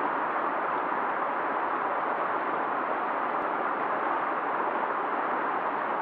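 Fast-flowing river water rushing in a steady, unbroken roar.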